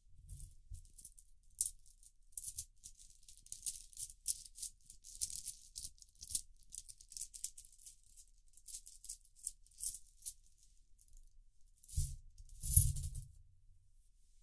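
Coins clinking and jingling inside a small cloth drawstring bag as it is handled, in many short light clicks. About twelve seconds in the coins are tipped out onto a towel: a louder rush of clinking coins with a soft thud, loudest about a second later.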